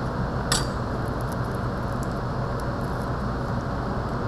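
A chef's knife clicks once against a plastic cutting board about half a second in, as garlic cloves are crushed under the flat of the blade. A few faint ticks follow as the loosened garlic skins are handled, over a steady background hum.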